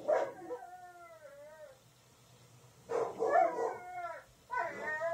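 A dog howling in drawn-out, wavering calls that rise and fall in pitch, in three spells with a short quiet gap about two seconds in.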